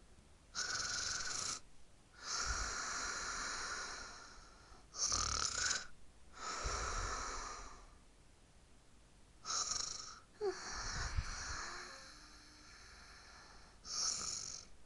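Cartoon character snoring: breathy snores in pairs, a short intake followed by a longer hissing breath out, repeating about three times, with the next intake starting near the end.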